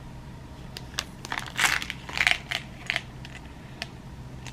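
A clear plastic blister pack on its cardboard card crinkling and clicking as it is handled and turned over, in a cluster of crackles from about one to three seconds in, loudest near the middle.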